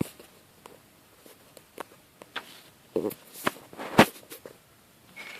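A sheet of ordinary paper being handled and folded into an origami wallet: scattered short, sharp rustles and crinkles, the loudest about four seconds in.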